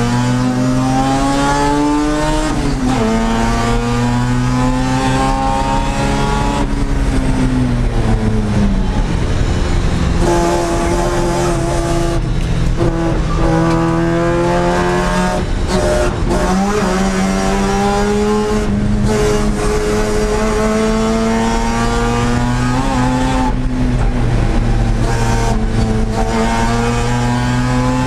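Mazda RX-7's 13B rotary engine at racing speed, heard from inside the car's stripped cabin. The revs climb, drop sharply about two seconds in, sag again around eight seconds, stay lower for several seconds, then climb hard again just past halfway and keep rising.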